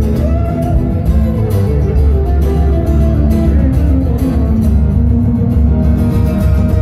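Solo acoustic guitar played fingerstyle: a plucked melody over bass notes, amplified through a PA with a heavy, booming low end.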